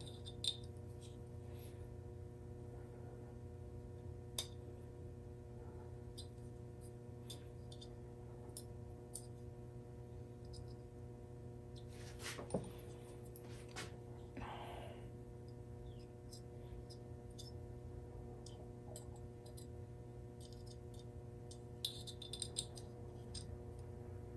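Scattered faint metal clicks and taps from new spark plugs and a gap tool being handled while their electrode gaps are checked and adjusted, over a steady low hum.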